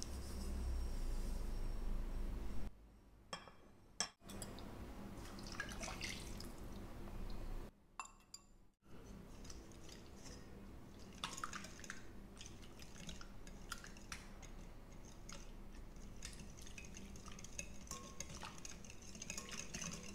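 Wire whisk mixing batter in a glass bowl, with light clicks and scrapes as the wires knock and drag against the glass. A low rumble in the first couple of seconds, and a few short silent gaps.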